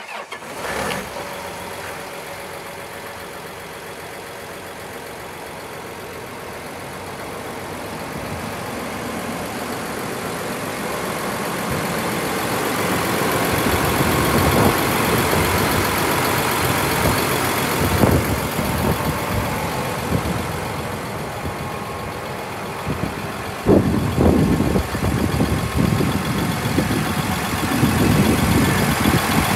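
John Deere 9330 four-wheel-drive tractor's six-cylinder diesel engine idling steadily, growing louder over the first half, with some irregular low rumbles near the end.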